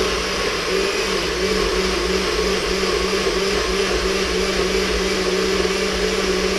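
Electric blender running steadily, its motor hum and rushing whir blending a green smoothie of greens, yogurt and almond milk.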